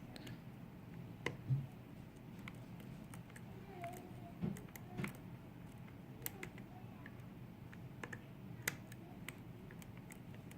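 Small irregular metallic clicks and ticks of a lock pick probing and lifting the pins of a pin-tumbler lock cylinder held under tension, a dozen or so faint sharp ticks with a few louder ones.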